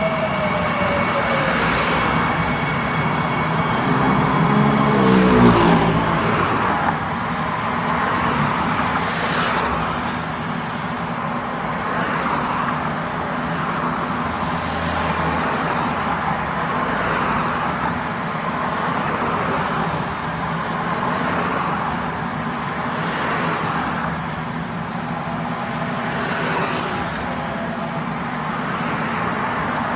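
Metro train running: a motor whine falls in pitch in the opening seconds and again, loudest, about five seconds in, then gives way to steady rumble and hiss that swells every three seconds or so.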